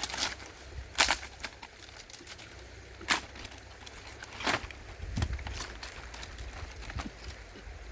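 A few sharp knocks, irregularly spaced about one to two seconds apart, over a steady low rumble.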